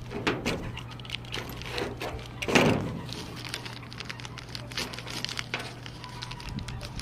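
Hands handling small parts and tools: scattered clicks and knocks, with louder knocks just after the start and about two and a half seconds in, over a faint steady low hum.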